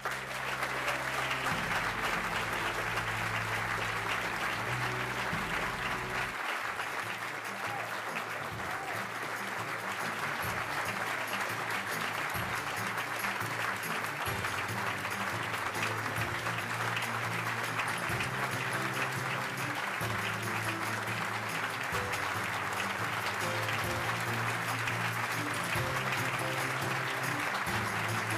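Audience applauding steadily, with instrumental music playing underneath.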